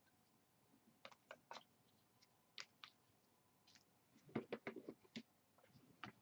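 Near silence broken by faint, sharp clicks and taps: a handful scattered one to three seconds in, then a quick cluster of them about four to five seconds in.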